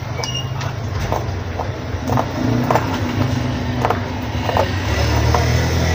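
Scissors snipping through fabric in short, irregular cuts, over a loud, steady low motor hum.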